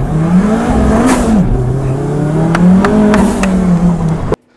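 Kimera EVO37's turbocharged and supercharged four-cylinder engine accelerating hard. The revs climb, drop sharply about a second and a half in at a gear change, then climb again and hold, with a few sharp clicks along the way.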